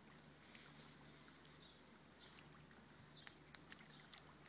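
Near silence: faint outdoor ambience with a few soft, sharp clicks between about three and four seconds in, the loudest about three and a half seconds in.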